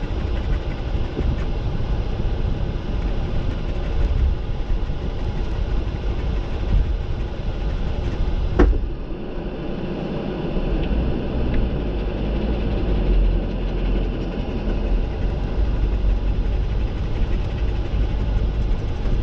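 Jeep driving on a rough trail, its engine and drivetrain making a steady low rumble. A single sharp knock comes about eight and a half seconds in.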